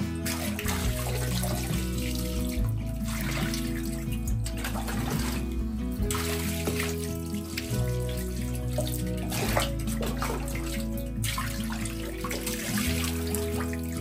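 Water running and splashing, with a couple of brief pauses, over background music.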